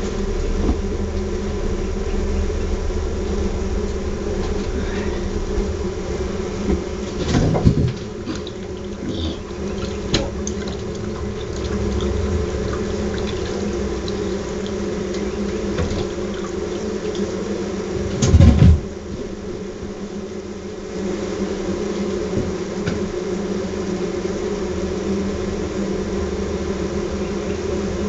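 Steady hum of a large honeybee colony buzzing on its exposed comb. Two dull knocks break through, about a quarter of the way in and again about two-thirds through.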